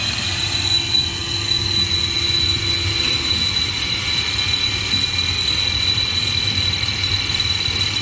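Power drill running steadily with a Matco HyperStep 1/2-inch stepped bit cutting into a cast-iron Super Duty brake rotor: a high-pitched whine over continuous cutting noise. A lower tone drops out a little over three seconds in.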